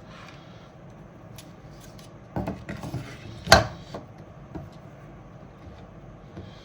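A 3D-printed plastic fan bracket being handled against a server chassis: a few sharp clicks and knocks in the middle, the loudest a little over halfway through.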